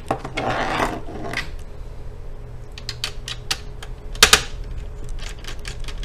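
Light clicks and taps of a small screwdriver and fingers on an open laptop's plastic and metal innards, while the hard drive's screw is taken out. A sharper double click comes a little past four seconds in, then quick light clicks follow.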